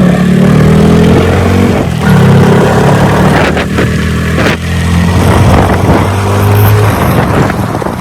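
A road vehicle's engine running loud and steady, its pitch dropping and rising in steps a few times.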